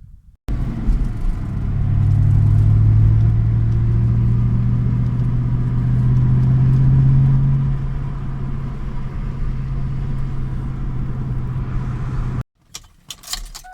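2004 Ford Mustang Mach 1's 4.6-litre V8 engine running steadily, its idle air control valve and throttle body freshly cleaned. The sound starts abruptly about half a second in and cuts off suddenly near the end.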